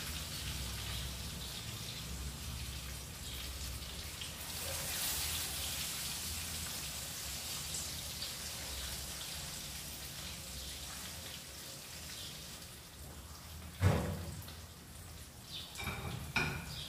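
Salmon fillet frying in oil in a pan, a steady crackling sizzle. Near the end a single sharp knock, then a few light clinks.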